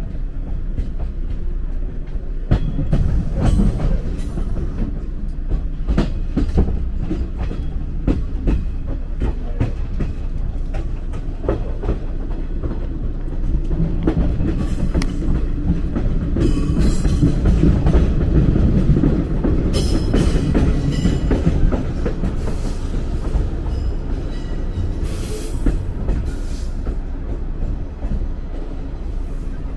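185 series electric train moving slowly across a set of points while switching tracks, its wheels clicking and knocking over the rail joints and crossings with a low rumble. Short high-pitched wheel squeals come in around the middle and later on.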